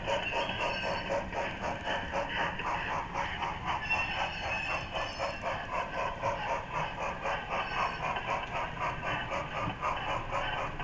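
HO-scale model train running on the layout track, a steady rapid rhythmic clicking.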